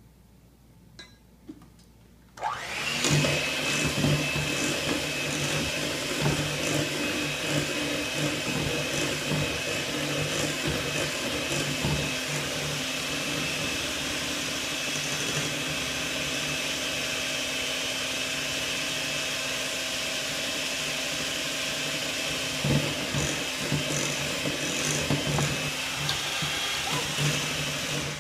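Electric hand mixer starting about two seconds in and running steadily at a constant speed, a high whine over its motor hum, its beaters whipping cupcake batter in a glass bowl with scattered clicks against the sides; it cuts off right at the end.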